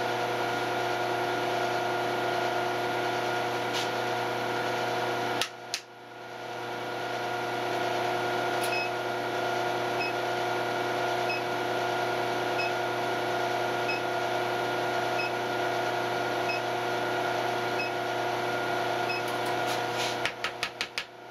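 Induction heater running with a steady multi-tone hum while steel wire heats to a welding heat in its coil; the hum drops out briefly about five seconds in and builds back up. Faint short pips repeat about every second and a quarter through the second half, and a quick run of clicks comes near the end.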